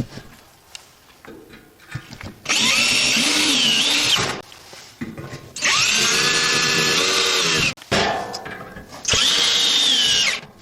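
Power drill running in three bursts of about one and a half to two seconds each, its pitch wavering as it works, after a few light knocks.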